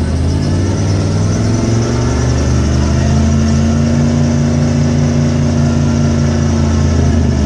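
1995 Ford F150 engine running steadily as the truck creeps along at about 5 mph, its pitch rising a little about three seconds in.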